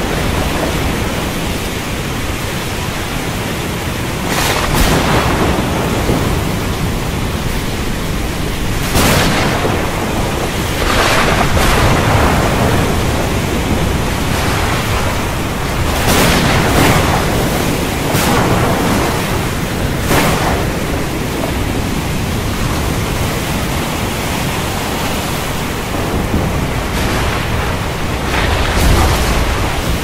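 Storm at sea: a steady roar of wind, rain and surf, with waves surging and crashing every few seconds.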